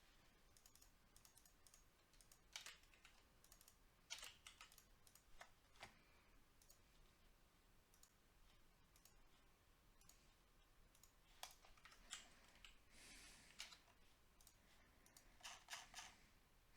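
Faint, irregular clicks and taps, like keys or a mouse being pressed now and then, over a quiet background.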